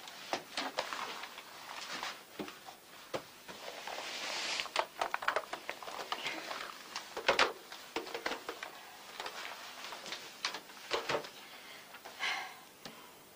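Scattered clicks, knocks and rustling of small household objects being handled and set down on a shelf, with a short scraping sound near the end.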